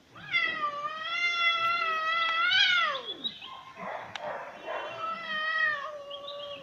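A domestic cat yowling in a threat display: a long drawn-out yowl that slides down in pitch at its end, a rough noisy stretch, then a second long yowl.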